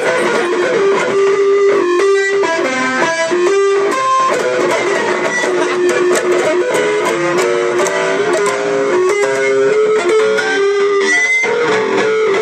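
Electric guitar solo: a single-note lead line of quickly picked notes, with no singing over it.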